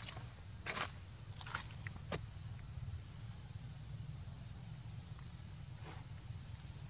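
Steady high-pitched drone of insects in the surrounding vegetation, with a few brief faint rustles or scuffs.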